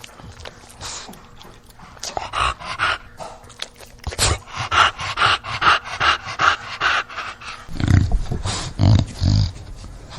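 English bulldog breathing noisily: quick, rhythmic panting breaths, about three a second, followed near the end by a few low grunts.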